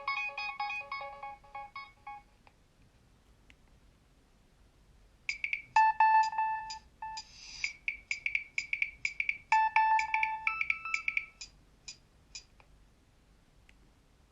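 Nokia 3100 polyphonic ringtones. One tune of quick electronic notes ends about two seconds in. After a pause of about three seconds, another plays for about seven seconds, a fast run of notes with a short hiss-like percussion hit near its start.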